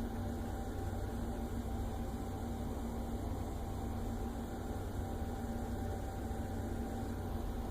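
Steady low hum with faint constant tones and no distinct events: background equipment or room noise.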